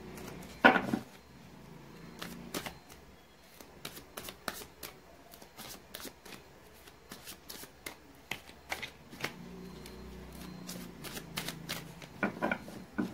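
A deck of tarot cards being shuffled by hand: an irregular run of quick card slaps and clicks, with one louder slap about a second in and a few stronger ones near the end.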